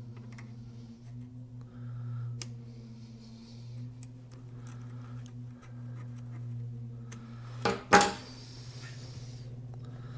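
Small metallic clicks and taps of hand tools working a small engine's valve rocker, as the clearance adjuster is turned against a feeler gauge, over a steady low hum. About eight seconds in there is one sharp, loud clatter, the loudest sound.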